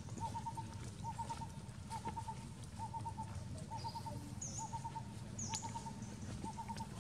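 A bird calling over and over in quick groups of three or four short notes, a little under once a second. A few high, falling chirps from a second bird come around the middle, over a steady low background hum.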